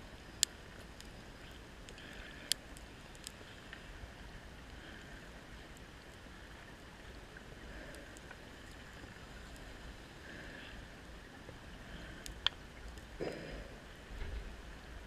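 Underwater ambience of a wreck dive: a steady low hiss and rumble with a few sharp, isolated clicks, and a short muffled burst near the end.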